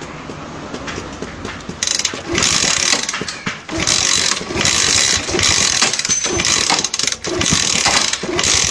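Motorcycle being kick-started: the kick-starter is pumped over and over, about once a second, the ratchet clicking and the engine turning over with each kick.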